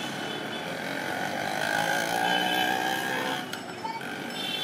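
Busy city street traffic: motor scooters and auto-rickshaws passing with their engines running, swelling louder about two seconds in.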